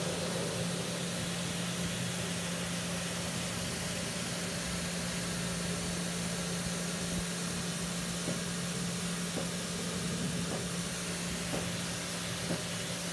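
Pressure washer spraying water onto an exposed screen-printing screen, washing out the emulsion to develop the stencil. A steady hiss of spray runs over a steady low hum from the washer.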